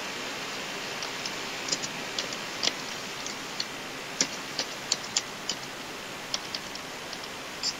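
Computer keyboard keys being typed, about twenty irregular clicks over a steady background hiss.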